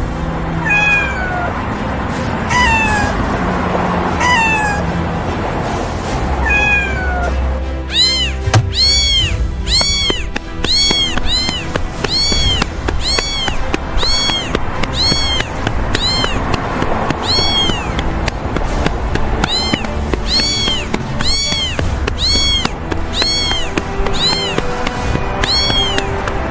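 Cat meows over background music. At first a slow series of falling meows about every second and a half, then from about eight seconds in quick, high-pitched rising-and-falling mews about twice a second in a steady rhythm.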